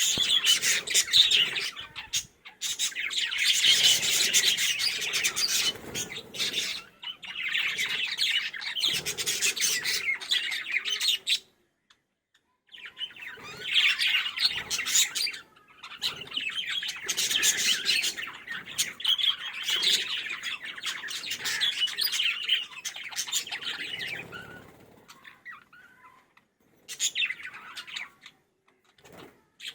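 Pet parrots chattering and chirping in a dense, rapid stream of high calls, with a short break about halfway through and only scattered chirps near the end.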